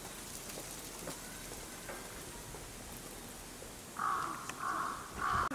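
A crow cawing three times in quick succession about four seconds in, harsh and loud, over a steady outdoor background hiss.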